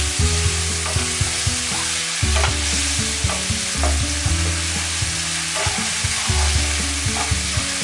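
Potatoes and spice paste sizzling in oil in a non-stick pan while a wooden spatula stirs and scrapes through them, with a short scrape or knock every second or so. The masala is being fried with a splash of water.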